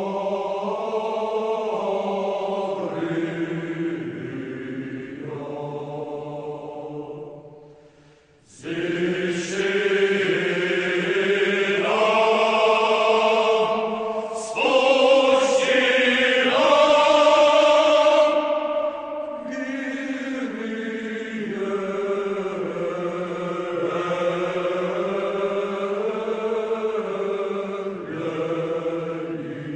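Choral chant: voices singing long held notes that move in steps from pitch to pitch, breaking off briefly about eight seconds in before starting again louder.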